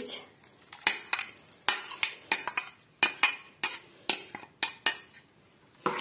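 Steel spoon clinking against a glass bowl as ginger-garlic paste and chopped green chillies are scraped out of it into a pan: a quick, irregular run of sharp clinks, a short pause, then one more near the end.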